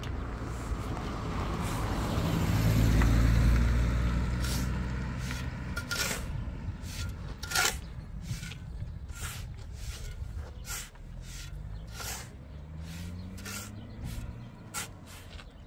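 An engine running close by, loudest about three seconds in and then fading, with a short rise in pitch later on. A steady series of sharp knocks, a little under a second apart, sounds over it from about four seconds in.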